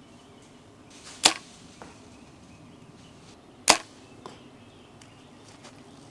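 Compound bow shot twice: two sharp snaps of the string and limbs on release, about two and a half seconds apart. Each is followed about half a second later by a faint knock.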